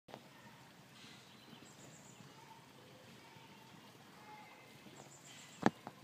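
Faint woodland ambience with soft, high bird chirps in the background. A sharp click comes about five and a half seconds in, then a smaller one just after.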